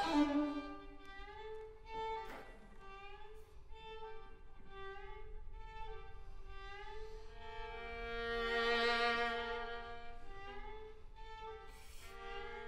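Two violins playing a duet of quiet held notes that slide from pitch to pitch, swelling louder around the middle and softening again near the end.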